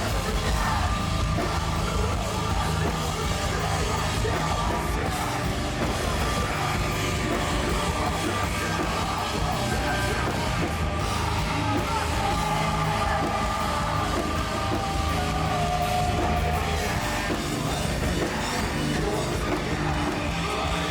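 A heavy metal band playing live, with drums, distorted instruments and yelled vocals, loud and unbroken.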